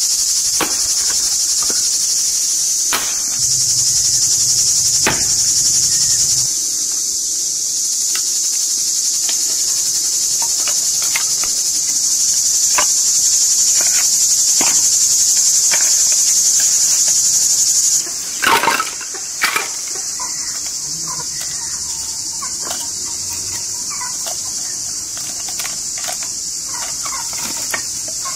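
A steady, high-pitched chorus of crickets, with scattered sharp wooden knocks from a hatchet splitting firewood and split pieces being handled. The loudest knocks come in a quick cluster about two-thirds of the way through.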